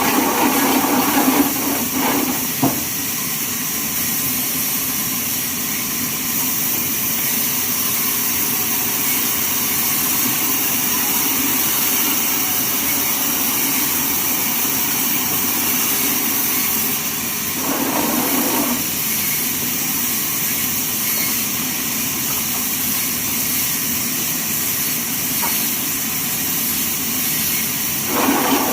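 Band sawmill running steadily with a hissing whir. A fuller, louder sound comes in briefly at the start, again about two-thirds through, and at the very end.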